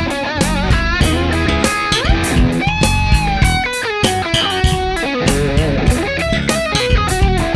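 Rock music with a lead electric guitar, bass and a steady drum beat.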